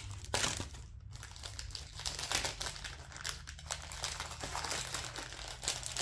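Clear plastic packaging crinkling in irregular bursts as it is handled and pulled apart.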